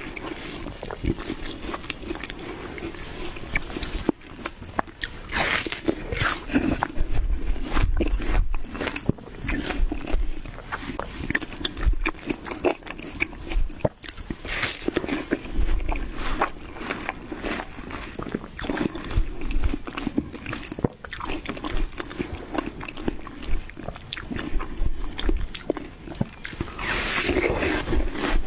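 Person biting into and chewing watermelon: repeated crisp, juicy crunches at an irregular pace.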